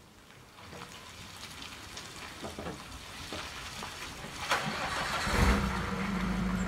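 A panel van's engine cranks and starts about four and a half seconds in, then settles into a steady idle.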